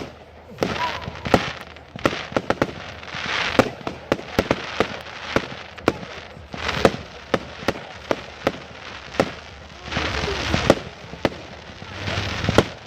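Fireworks display: a long, irregular series of sharp bangs from aerial shells, several a second at times, with longer stretches of crackling noise in between.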